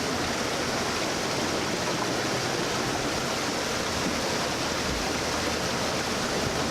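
Steady rushing of flowing water, an even noise with no breaks or surges.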